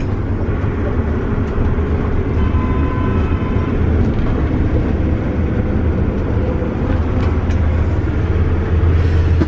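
Steady low engine drone and road rumble of a motorhome on the move, heard from inside its rear living cabin.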